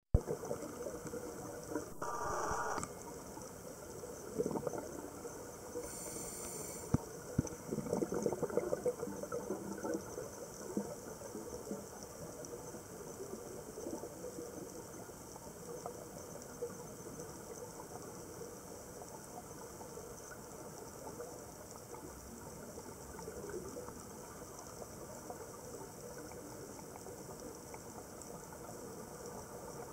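Underwater ambience: a steady hiss with faint crackling. A short louder rush comes about two seconds in, and the crackling is busier for a few seconds around the eight-second mark.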